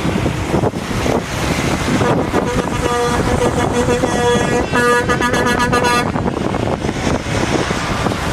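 Truck air horns honking in repeated blasts over steady road noise, with one horn pulsing rapidly for about a second around five seconds in.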